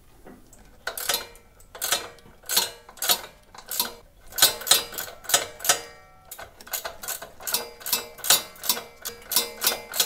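A 3/4-inch ratcheting wrench clicking as it is swung back and forth on the mower deck's front lift-adjustment nut, tightening it to raise the front of the deck. The metallic clicks start about a second in at about two a second, with short pauses around four and six seconds, and come faster, about three a second, in the second half.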